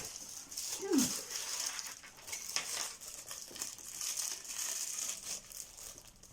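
Plastic packaging crinkling and rustling as it is handled, with small ticks, and a brief falling low sound about a second in.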